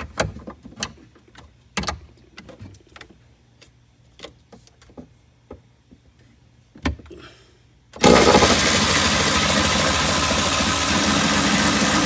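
Scattered small clicks and knocks of hand work, then about eight seconds in a loud, steady machine noise starts abruptly and keeps running.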